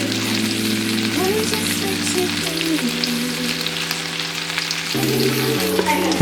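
Food sizzling and crackling as it fries in a pan, over background music with slow-changing chords.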